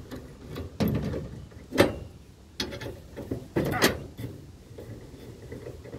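Metal parts of a small generator being handled: a few separate knocks and scrapes, the sharpest about two seconds in and another cluster near four seconds.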